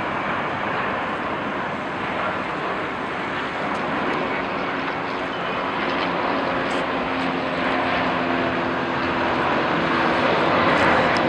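Boeing 787-8 airliner's twin Rolls-Royce Trent 1000 turbofan engines as the plane lands and rolls out along the runway: a steady jet hiss with a faint low hum, growing gradually louder through the pass.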